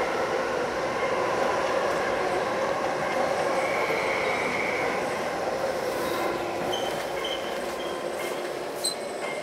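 MTR electric multiple-unit train running through a station platform without stopping, a steady noise of wheels and motors. A brief high wheel squeal comes about four seconds in. The sound eases off in the last few seconds, with one sharp click near the end.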